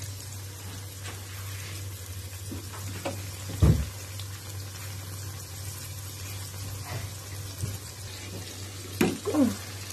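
Breaded chicken fillets frying in shallow oil in a wok: a steady sizzling hiss over a low steady hum. A dull thump about three and a half seconds in, and a sharp click near the end.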